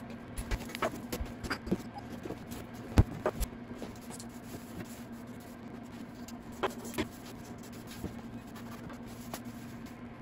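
Scattered light knocks and clinks of jars and small objects being picked up from and set against a metal wood-stove top, with one louder knock about three seconds in, over a faint steady hum.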